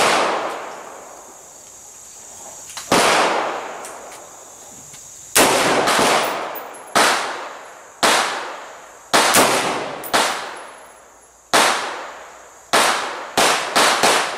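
A DPMS Oracle AR-15 firing .223 rounds semi-automatically: about a dozen rifle shots, each with a trailing echo. The first shot is the loudest, there is a gap of a few seconds after it, and the shots come faster and closer together toward the end.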